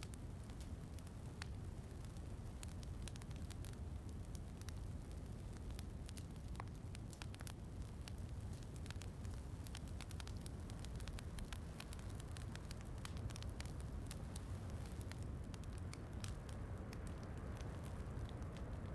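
Wood fire in a fireplace crackling, with many sharp irregular pops, over a steady low hiss and rumble of rain.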